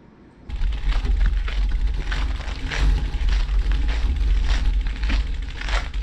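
Wind rumbling on the microphone outdoors, starting abruptly about half a second in, with irregular crunching crackles of footsteps on gravel, about two or three a second.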